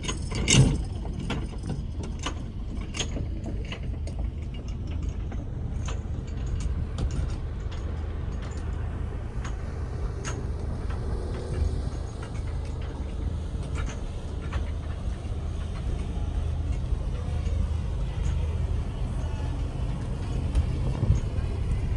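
Steady low hum of the wooden charter boat's onboard machinery. In the first few seconds there are sharp knocks and clicks on the boat, the loudest about half a second in.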